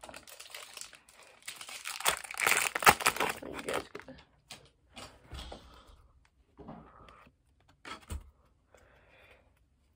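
A baseball card pack's foil wrapper crinkling and tearing as it is ripped open, loudest in the first few seconds. Then softer, scattered rustles and taps as the cards are handled.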